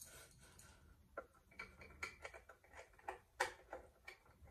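Faint, irregular light clicks and taps of hardware being worked loose as an old knob is unscrewed from a wooden vanity drawer.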